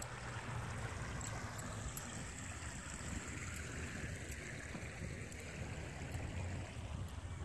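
Creek water flowing, a steady rushing noise with a constant low rumble underneath.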